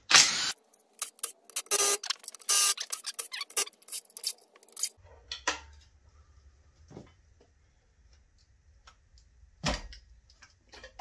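A cordless driver runs in short bursts as it spins out an engine's oil pan bolts, mixed with quick metallic clicks and clinks of bolts and tools being handled. After about five seconds it gives way to scattered lighter clicks from working on the engine by hand.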